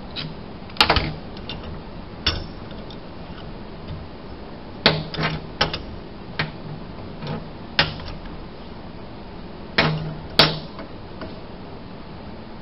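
Bench vise being opened and an aluminium tail housing and steel socket handled in its jaws: a series of about nine irregular sharp metal clacks and knocks, the loudest about a second in and near the end.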